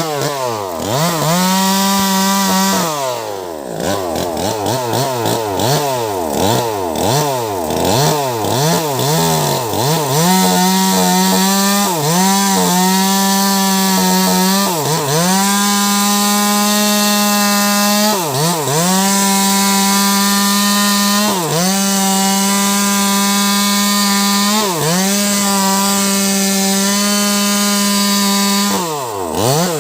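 Wagner 580 two-stroke chainsaw with a 16-inch bar cutting into a thick log, about 70 cm across. The engine pitch rises and falls sharply over the first ten seconds, then holds high under load, dipping briefly and recovering every three seconds or so as the chain bites.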